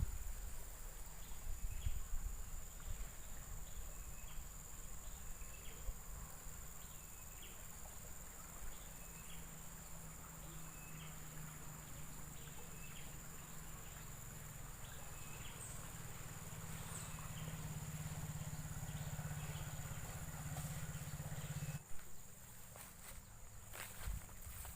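Night chorus of insects by a river: a steady high-pitched insect drone, with a short chirp repeating about once a second. Under it runs a low hum that cuts off suddenly about 22 seconds in.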